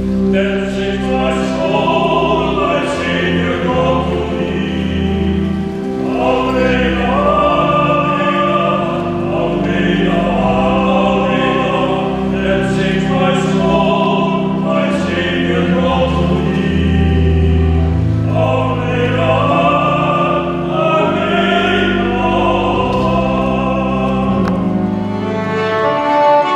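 Two men's voices singing together from song sheets with vibrato, over sustained instrumental accompaniment.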